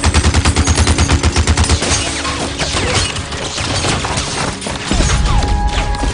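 Gatling gun firing in a movie battle scene: a fast, even rattle of about ten shots a second for the first two seconds, then scattered impacts and crashes, and another heavy burst of fire near the end.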